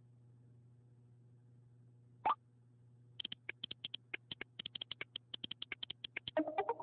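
iPhone keyboard clicks as a message is typed quickly, from about three seconds in, preceded about two seconds in by a short rising blip as a new message arrives, and ending in the short send swoosh as the message goes out. A low steady hum sits underneath.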